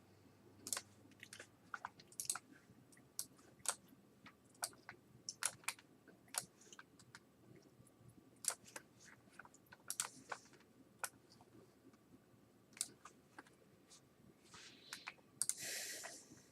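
Faint, irregular light clicks and taps, a few every second, with a short rustle about fifteen seconds in.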